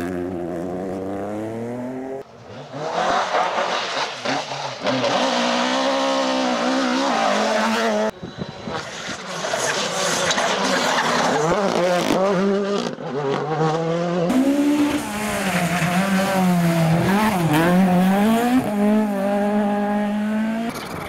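Rally car engines driven hard, revving up and dropping back repeatedly through gear changes, heard as several separate cars with sudden cuts between them. The last car is a Mk2 Ford Escort rally car.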